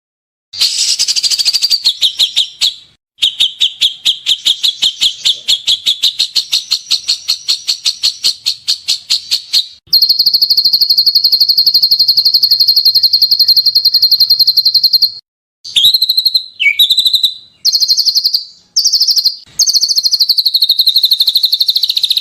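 Recorded songbird calls used as masteran tutor song: harsh, high-pitched chattering and trilling in separate phrases with abrupt breaks between them. A fast run of ticking notes gives way, about ten seconds in, to a long, very rapid rattling trill, followed by shorter varied calls.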